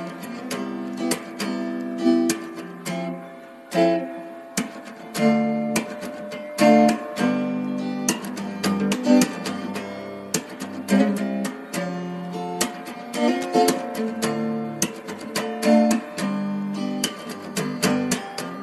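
Background music: acoustic guitar strumming and picking chords in a steady rhythm.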